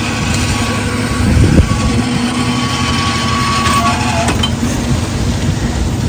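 Engine of a site concrete mixer and bucket hoist running steadily during a roof-slab pour, a loud unbroken mechanical drone.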